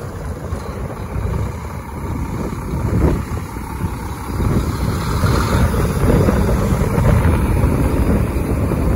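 Wind buffeting the microphone, a rough low rumble that grows louder about halfway through.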